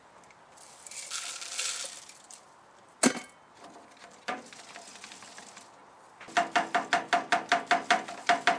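Hardwood smoking chips being filled into the hopper of a smoke generator on a hot-smoking oven: a soft rustle of chips, a sharp knock about three seconds in and a lighter one after it, then a rapid even run of ringing metallic taps, about seven a second, near the end.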